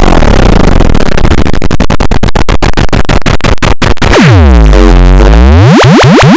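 Very loud, distorted synthesized sound effect: a harsh noisy buzz chopped by clicks that come faster and faster, then a pitched electronic tone that sweeps down and back up about four seconds in, then a rapid pulsing that climbs in pitch.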